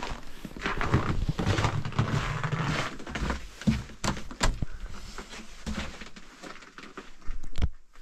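The door of a small wooden forest hut being tried and found padlocked: scuffing and rattling, then sharp knocks about four seconds in and again near the end.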